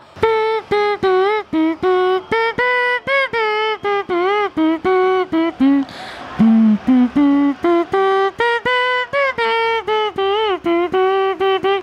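A man's voice mimicking a tune through a hand cupped over his mouth: a quick run of short, clipped notes with little bends in pitch, dropping to a few lower notes about six seconds in.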